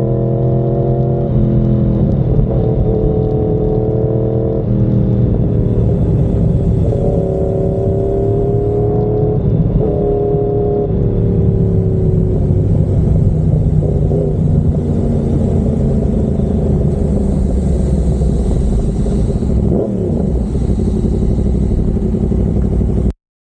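Yamaha MT-10's crossplane inline-four engine through an SC Project carbon-titanium exhaust, heard while riding. Its pitch rises and falls in steps as it accelerates and eases off. The sound cuts off suddenly near the end.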